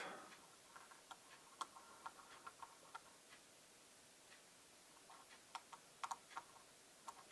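Faint, scattered small clicks and ticks from a screwdriver driving a propeller-blade screw into a DJI Mini 4K drone's motor, in two short clusters.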